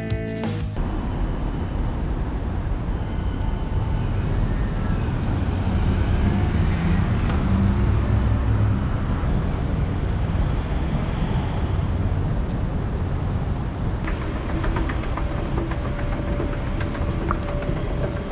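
City street ambience: a steady low rumble of traffic, with scattered faint ticks and clicks in the last few seconds.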